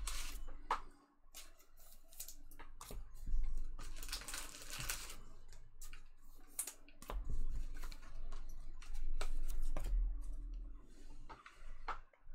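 Trading cards being handled and set down on a table: light clicks and taps, a rustle lasting about a second around four seconds in, and low bumps against the tabletop.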